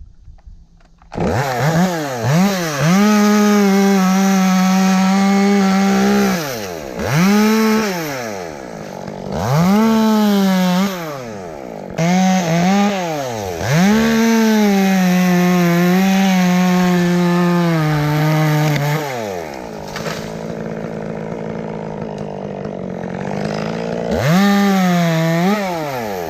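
Chainsaw coming in about a second in and revving to full speed again and again, each stretch of high steady running dropping back in between. Near the end it runs lower for a few seconds before one more rev.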